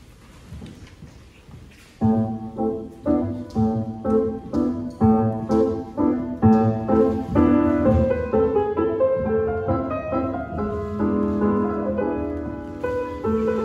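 Solo piano playing ballet class music, a steady run of notes that begins about two seconds in.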